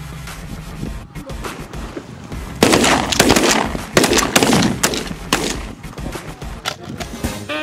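A quick volley of shotgun shots, several blasts close together, begins about two and a half seconds in and fades out a few seconds later, over background music.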